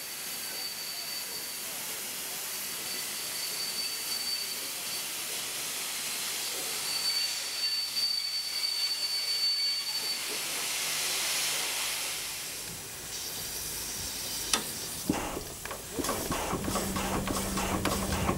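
Steam locomotive's driving wheels rolling under braking: a steady hiss of escaping steam and air, with a thin high brake squeal coming and going. Several knocks and a low hum follow near the end.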